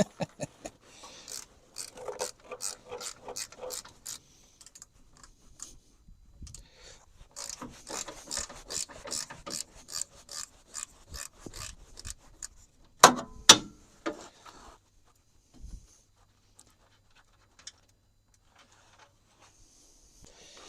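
Hand ratchet wrench clicking in quick runs while loosening bolts on the truck's front end, with two sharp knocks about two-thirds of the way through.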